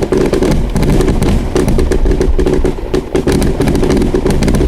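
Fireworks finale barrage: many rapid, overlapping bangs and crackling bursts over a constant low rumble.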